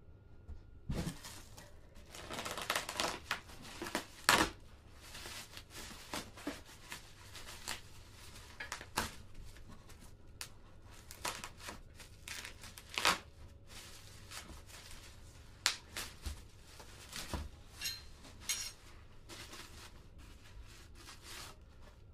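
Plastic bubble wrap being crinkled and torn by hand as it is pulled off stainless-steel exhaust tailpipes: an irregular run of rustling with sharp crackles, the loudest snap about four seconds in.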